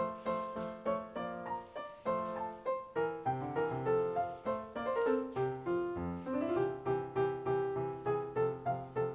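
Background piano music: gentle notes played in a steady flowing pattern, a few notes a second.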